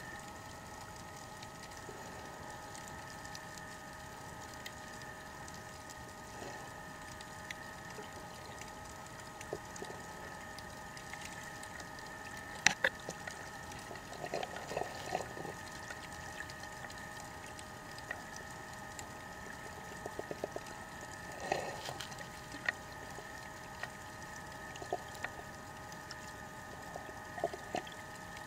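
Underwater ambience: a steady hum of several held tones, with scattered sharp clicks and short runs of rapid ticking from about halfway through and again near the end, one loud click standing out in the middle.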